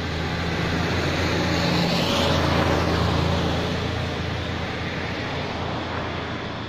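Road traffic: a motor vehicle driving past on the paved road, its engine hum and tyre noise growing louder to a peak about two and a half seconds in, then fading away.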